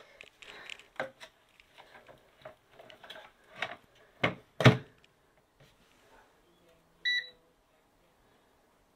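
Metal racks clattering as they slide into a Tower air fryer oven, with two sharp knocks just after four seconds in as the door is shut. About seven seconds in, the oven's control panel gives one short electronic beep as the extra five minutes are set.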